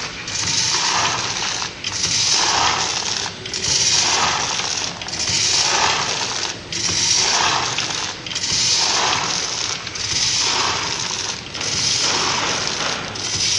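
Vertical packaging machine with a measuring-cup filler running automatically and packing roasted beans. It repeats an even working cycle about every second and a half, each cycle a hissing rush with a short break between cycles.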